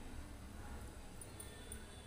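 Fingers mixing cooked rice with mango pickle on a plastic plate: a few faint soft ticks and squishes over a steady low hum.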